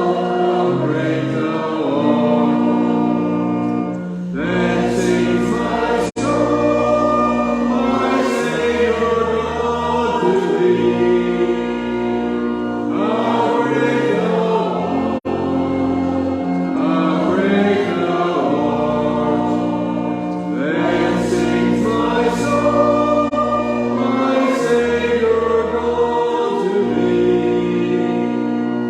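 A hymn sung by many voices together, with sustained held notes accompanying them, and two momentary dropouts in the sound.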